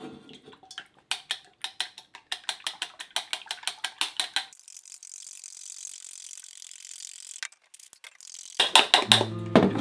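Chopsticks beating eggs in a stainless steel bowl: a fast, even run of clicks against the metal, about five a second, then a steady soft hiss, with a few louder knocks near the end.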